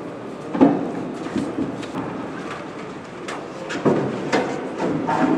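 Scattered sharp knocks and clatter of grey partition panels being handled and fitted into place, five or so impacts spread across a few seconds.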